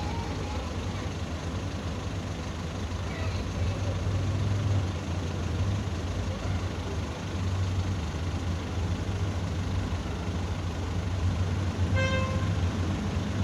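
A steady low hum with background noise, and a short pitched toot about twelve seconds in.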